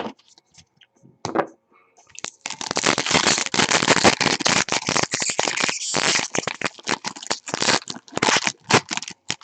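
Plastic trading-card pack wrapper crinkling as it is torn open and handled, a dense crackling rustle that starts about two seconds in and runs until just before the end.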